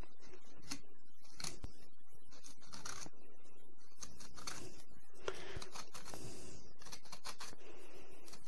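Knife cutting along the rib bones of a bone-in pork loin to free the ribs: faint, irregular scrapes and small clicks of the blade on bone, with soft handling of the meat on a wooden board.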